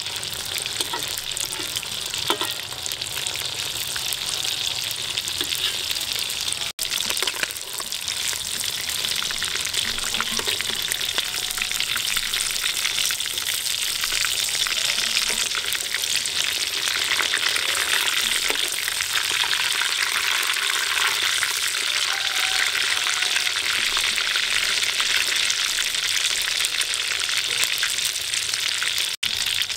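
Breaded cheese sticks deep-frying in hot oil in a wok: a steady, dense sizzle and crackle of bubbling oil. It breaks off for an instant twice.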